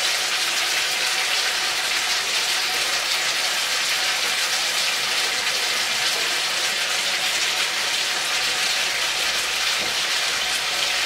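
Chopped onion and chicken pieces frying in a hot pan, a steady sizzle.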